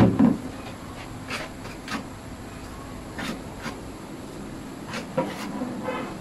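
Small trowel scraping and dabbing cement adhesive onto the concrete rim of a sink cut-out in short separate strokes, with a low heavy thump right at the start.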